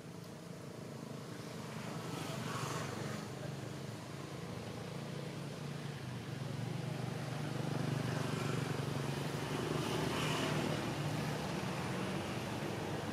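Engine of a motor vehicle running steadily, growing gradually louder, with swells about two and a half seconds in and again near ten seconds.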